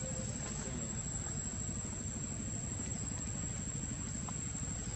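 Steady outdoor background noise: a constant thin high-pitched whine over a low rumble, with no distinct calls or knocks.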